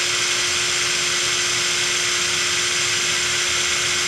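Xiaomi Mijia Tonfon 12 V cordless drill running flat out with no load, a steady motor-and-gearbox whine, spinning at about 1400 rpm.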